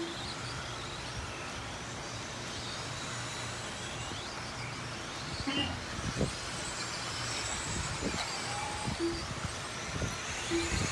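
Electric 2WD stock RC buggies running on a dirt track: a faint whine of motors rising and falling over steady background noise, with a few light knocks in the second half.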